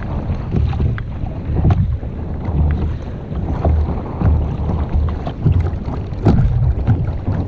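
Wind buffeting the microphone over water lapping against a kayak's hull, with scattered small knocks.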